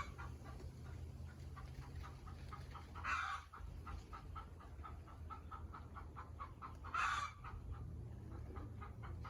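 Chickens clucking quietly in a quick, even run of short clucks, with two brief louder calls about three and seven seconds in.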